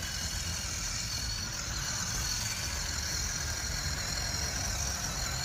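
WPL C24KM RC crawler's electric motor and geared drivetrain whining steadily as it climbs at full throttle in first gear, low range, with a low rumble underneath.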